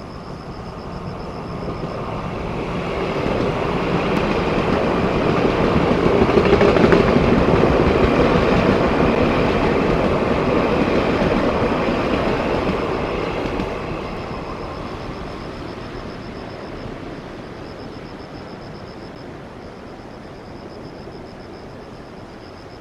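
Taiwan Railway TEMU2000 Puyuma tilting electric train passing at speed. Its rumble and rail noise swell to a peak about seven seconds in, then fade away over the next several seconds.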